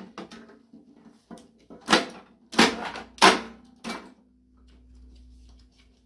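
Parts being pulled and handled inside a scrap microwave's metal casing: a run of sharp clicks and clatters of plastic and metal, about four loud ones in the middle, as wires and connectors are pulled free.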